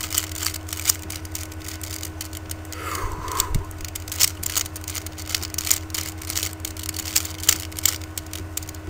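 Plastic speed cube being turned rapidly by hand: irregular clicks and rattles of its layers snapping round, several a second, over a steady low hum.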